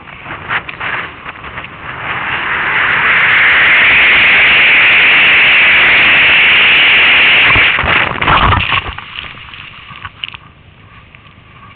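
Wind rushing over a helmet-mounted camera's microphone, building as the skier gains speed and then holding loud and steady for several seconds. About eight seconds in it breaks into a jumble of thumps and scraping as the skier falls in the snow, then quietens.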